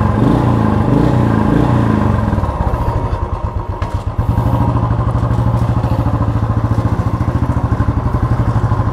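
Motorcycle engine running close by. Its pitch shifts over the first two seconds or so, then it settles into a steady idle.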